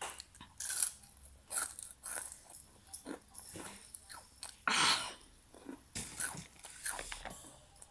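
A person eating close to the microphone: irregular chewing and crunching, with a louder noisy burst about five seconds in.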